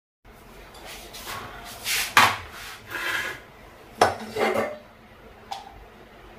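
Kitchen utensils clinking and scraping: cups, a tea strainer and a steel saucepan on a gas stove being handled, in a string of separate knocks, the loudest about two and four seconds in.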